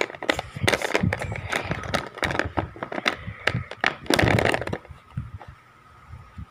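Wax crayons clicking, clattering and scraping against one another as a hand rummages through a pile of them in a box, with a longer rustle about four seconds in; the handling goes quieter for the last second or so.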